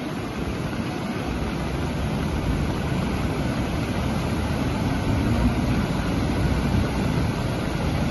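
Muddy floodwater rushing fast over a road in a torrent, a steady loud rushing noise of churning water.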